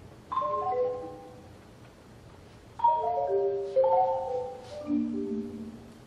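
Solo Yamaha concert marimba played with mallets: quick flurries of struck notes that ring on briefly. The first flurry comes about a third of a second in, then three more from just before the three-second mark onward, settling onto lower notes near the end.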